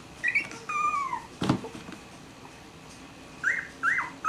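Three-week-old Cavalier King Charles Spaniel puppies whimpering. There is a short high squeak, then a falling whine, a single sharp tap about halfway, and a quick run of short squeaks near the end.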